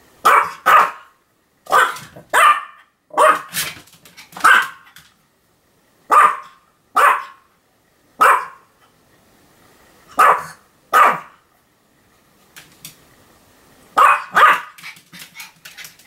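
Pomeranian barking repeatedly: short, sharp barks mostly in quick pairs, about fourteen in all, with a pause of about three seconds before the last pair and a few faint clicks near the end.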